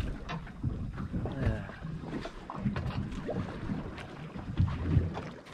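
Wind rumbling on the microphone aboard a small boat at sea, with a few light knocks and clicks.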